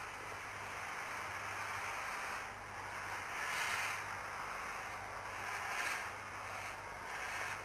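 Narrow-gauge (750 mm) steam tank locomotive moving slowly with steam escaping: a steady hiss with a few louder swells of steam.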